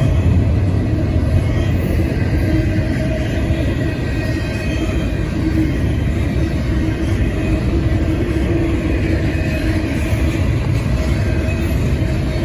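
Double-stack intermodal container train's well cars rolling past, a steady rumble of steel wheels on the rails.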